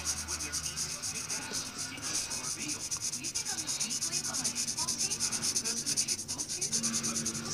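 Pencil scratching on paper in rapid back-and-forth shading strokes, several a second, keeping up an even rhythm.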